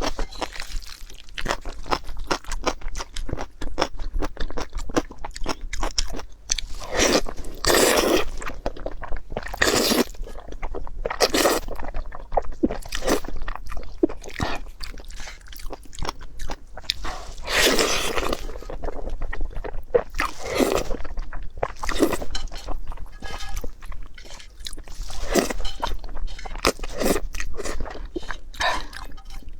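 A person biting and chewing crunchy food close to the microphone: steady crackling chews with several louder crunching bites.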